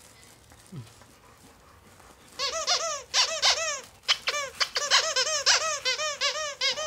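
Squeaker in a plush Death Star dog toy squeaking in a fast run of short squeaks from about two and a half seconds in, each squeak rising and falling in pitch.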